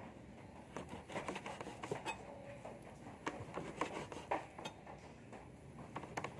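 Knife cutting on a chopping board: irregular sharp knocks, a few a second, with light clinks of utensils.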